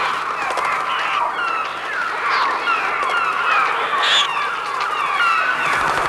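A huge flock of birds calling all at once: a dense, unbroken chatter of short falling chirps and cries, with a faint low hum underneath.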